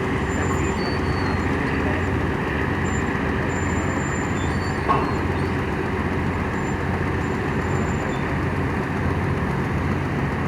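Tugboat diesel engine running at a steady drone, with one brief knock about five seconds in.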